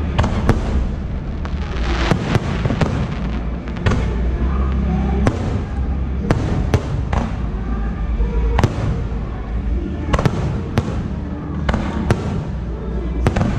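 Aerial firework shells bursting overhead: about twenty sharp bangs at irregular intervals, sometimes several close together, over a continuous low rumble.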